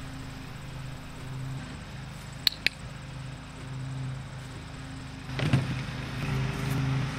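A low, steady mechanical hum, like a motor running, that swells and fades slightly. Two sharp clicks come about two and a half seconds in, and a louder rustle rises near the end.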